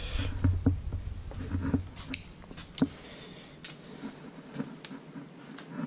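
Bubble wrap and a cardboard box being handled: scattered light crinkles, rustles and taps, with a low rumble of handling in the first couple of seconds.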